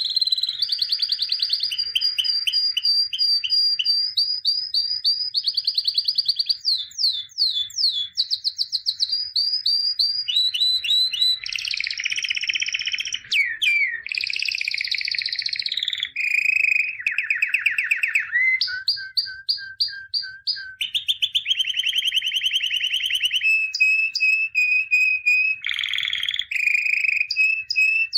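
A songbird singing a long, unbroken song of rapid trills and runs of repeated notes, switching to a new phrase every second or two.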